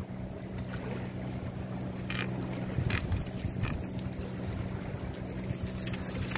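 Steady outdoor background: a low hum and a thin, high, steady whine, with a few short knocks about two to four seconds in.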